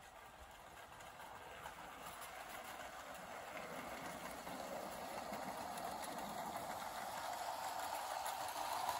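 Ace Trains LNER G5 0-4-4T battery-powered tinplate model locomotive and Hornby tinplate coaches running along O-gauge garden track, a steady rolling rattle of wheels on rails and motor. It grows gradually louder as the train approaches.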